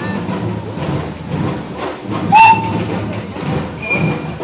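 A steam engine's whistle gives one short blast a little past halfway, the loudest sound, over a steady low background rumble. A fainter, brief high note sounds near the end.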